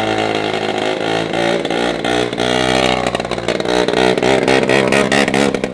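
Small quad bike (mini ATV) engine running as it is ridden along, its pitch wavering a little with the throttle.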